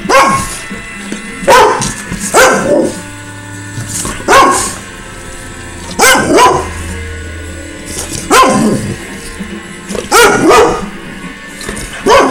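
Dog barking on the "speak" command: about nine single barks, a second or two apart.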